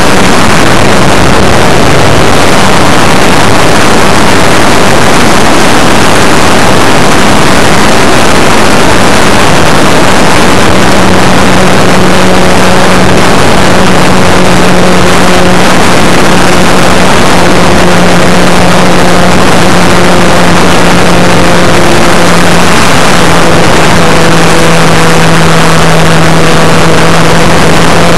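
Brushless electric motor and propeller of an RC Super Cub model plane running at steady cruise power in flight, a hum that drops slightly in pitch near the end. Heavy wind rush over the onboard camera's microphone makes it loud and distorted.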